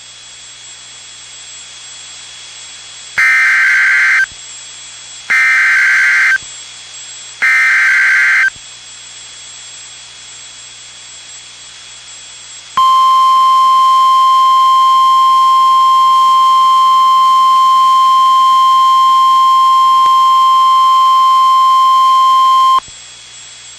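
NOAA Weather Radio alert tones over a hissing radio channel. First come three short, shrill bursts of SAME digital header data, about two seconds apart. After a gap, the steady 1050 Hz warning alarm tone sounds for about ten seconds, the signal that a warning, here a severe thunderstorm warning, is about to be read.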